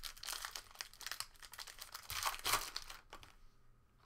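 Foil wrapper of a Panini Prizm basketball card pack crinkling and tearing as the pack is opened by hand, loudest about two and a half seconds in. It dies down a little after three seconds in to faint card handling.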